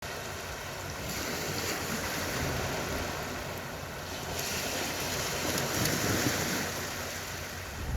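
Sea waves washing onto a beach: a steady rushing hiss that swells and eases twice.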